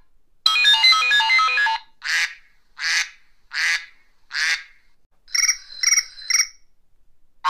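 Sound effects added in editing: a quick run of chiming melodic notes, then four short rushing swells, evenly spaced, then four quick electronic chirps like a ringtone.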